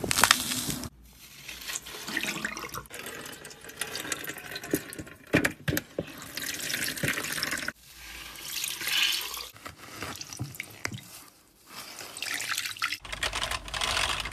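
Water-soaked green floral foam squeezed and crushed in a hand: crackling, squishing crunches as the foam breaks down, with water squeezing out and dripping. The sound breaks off abruptly a few times between takes.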